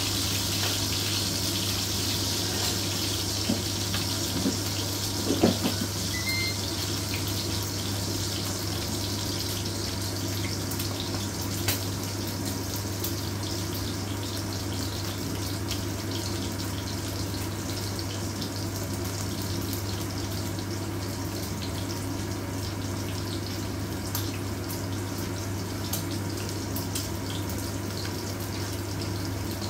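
Pork chops sizzling in hot oil in a pan, a steady frying hiss with scattered small pops and crackles as they brown, and a few louder clicks about four to six seconds in. A steady low hum runs underneath.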